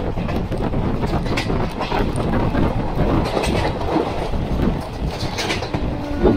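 Passenger express train running at speed, heard from on board: a steady loud rumble with irregular clicking and clattering from the wheels on the rails.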